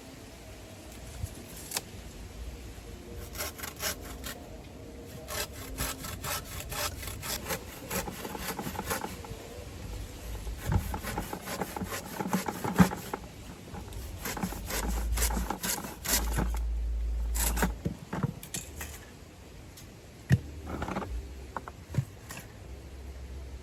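Rapid, repeated scraping strokes of a hand tool, in runs lasting several seconds, with a few separate sharp strokes later on. A low rumble comes in for a few seconds around the middle.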